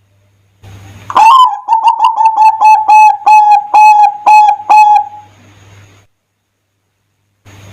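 Zebra dove (perkutut) singing: a sharp rising opening note about a second in, then a run of quick, clear, evenly repeated coos at roughly three a second that trails off after about four seconds.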